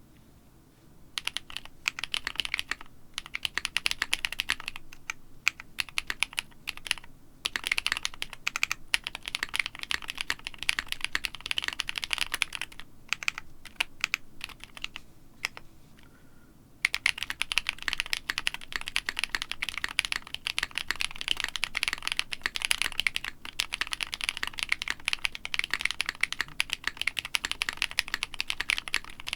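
Typing on a custom mechanical keyboard: Holy Panda tactile switches in a KBD 5degree case dampened with two layers of masking tape on the PCB, butyl in the battery cavity, a brass insert and O-rings around the plate. Fast, continuous keystrokes with a lighter, sparser stretch about halfway through before full-speed typing resumes.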